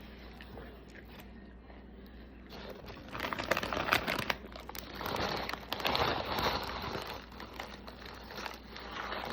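Close-up eating sounds: crinkling and crunching as a sub sandwich is bitten into and chewed, starting about three seconds in with dense crackly clicks.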